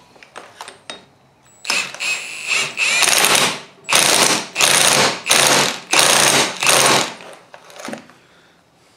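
Milwaukee M18 1/2-inch cordless impact wrench hammering the axle hub nut tight onto a zero-turn mower's hydrostatic transaxle shaft. It fires in about six short bursts, starting about two seconds in and stopping near the end.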